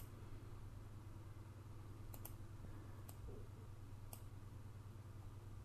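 Faint computer mouse clicks, four of them about a second apart in the middle of the stretch, over a low steady hum.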